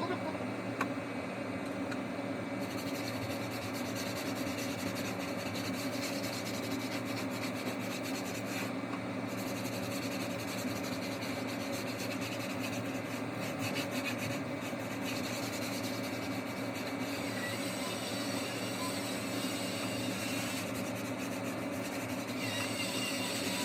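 A power tool grinding steadily as it bores a hole through a wall for an air-conditioner installation.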